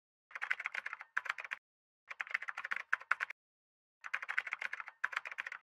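Computer keyboard typing sound effect: rapid key clicks in three bursts of about a second each, with short silent pauses between them.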